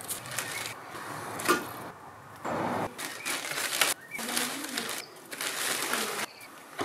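Chunks of lump charcoal being dropped and shifted in the ceramic firebox of a Big Green Egg kamado grill: irregular rustles and scrapes with a few sharp clinks, one about a second and a half in and another near the four-second mark.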